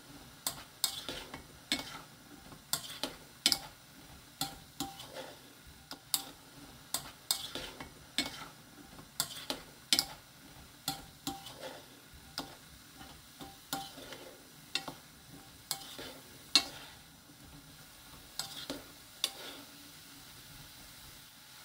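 Wooden spoon stirring kidney beans and green peas in a nonstick frying pan, knocking and clicking about twice a second, irregularly. Underneath is a faint sizzle from the last of the cooking liquid bubbling off. The clicks thin out near the end.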